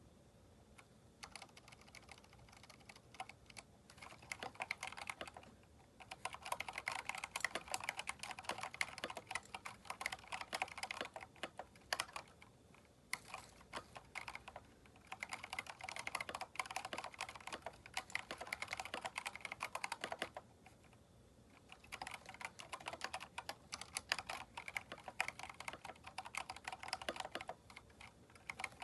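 Typing on a Keychron K4 mechanical keyboard fitted with aftermarket keycaps: runs of rapid keystroke clacks, broken by brief pauses.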